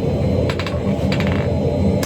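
A few light metal clinks, about half a second and a second in, over a steady low roar.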